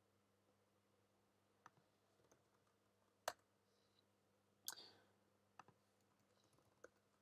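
A handful of faint, isolated clicks from a computer mouse and keyboard, spaced a second or so apart, over near silence.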